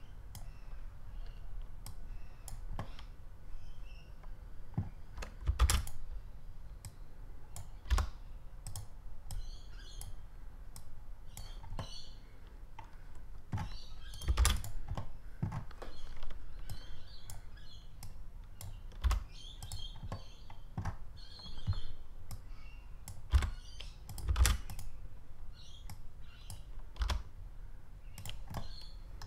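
Computer keyboard keys pressed at irregular intervals for Blender shortcuts, single clicks and taps with a few louder strokes, over a low steady hum.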